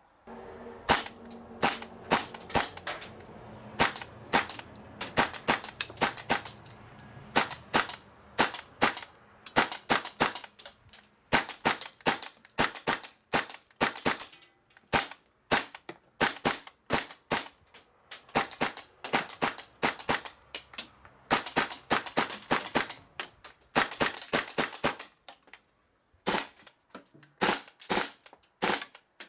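Airsoft gun shooting BBs at a paper target on a target stand: many sharp snapping shots, often several a second, in long irregular strings. They stop briefly near the end, then a few more shots follow.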